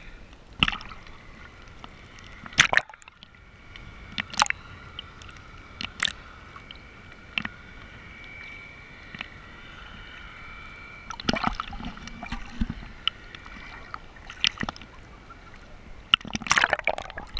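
Seawater sloshing and slapping against a camera held at the water's surface, with sharp splashes every second or two as the water washes over the lens and housing.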